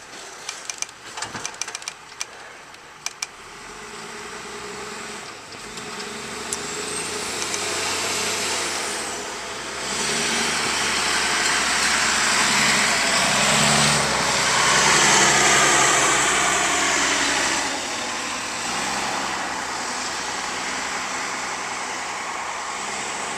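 Snowplow truck driving through while plowing: its engine builds as it accelerates and a broad rush from the blade pushing snow swells to its loudest about halfway through, then fades gradually as the truck moves on.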